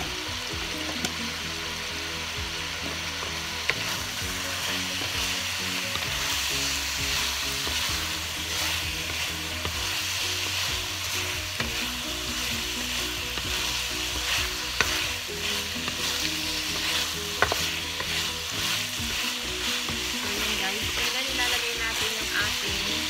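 Marinated pork chunks sautéing in a frying pan: a steady sizzle, with a wooden spatula stirring and scraping through the meat and a few sharp knocks against the pan.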